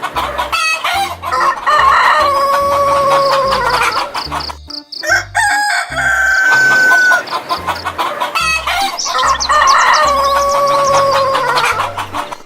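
Rooster crowing twice, each crow about three seconds long with a long held note that drops at the end. A shorter, higher call comes between the two crows.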